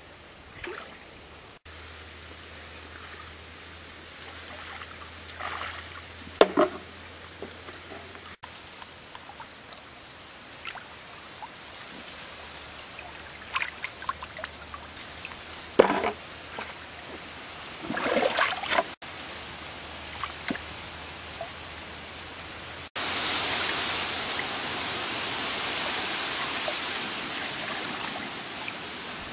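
Hands sloshing and splashing in shallow stream water while groping for shellfish and lifting them out, with water trickling off. There are a few short splashes, then a steadier, louder rushing noise about three-quarters of the way in.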